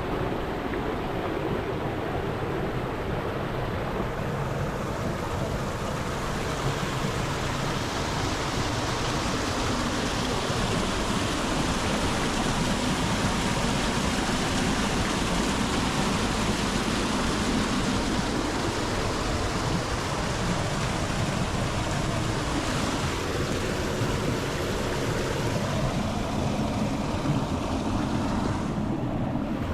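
Waterfall rushing steadily, a dense roar of falling water that grows brighter a few seconds in and turns duller near the end.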